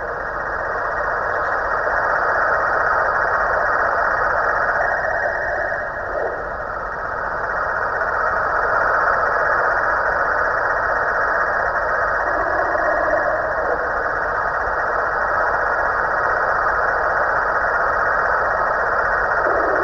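Snoring from a Halloween pumpkin decoration: a continuous noisy snore that eases and swells in slow breaths about every six to seven seconds.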